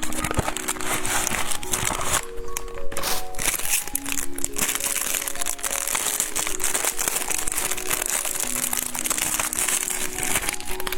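Background music with a steady held melody over a dense, crisp crinkling and crunching: kohakutou (amber sugar candy) and its packaging being handled and eaten up close.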